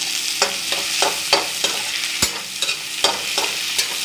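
Chopped onions sizzling in hot oil in a kadai, with a spatula scraping and knocking against the pan about three times a second as they are stirred, one knock near the middle louder than the rest. The onions are in the early stage of frying.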